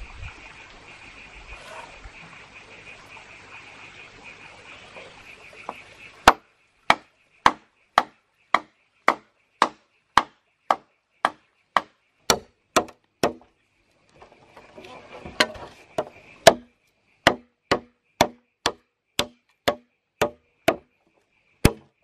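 A jungle knife chopping into a green bamboo pole, cutting a notch in a steady run of sharp strokes, roughly two a second, with a short pause partway through. Before the chopping starts there is a steady high-pitched drone of insects.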